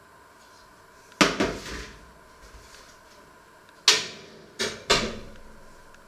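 A metal baking tray handled with a clatter and set down, with sharp metallic knocks and bangs: one rattling clatter about a second in, then three quick knocks close together near the end.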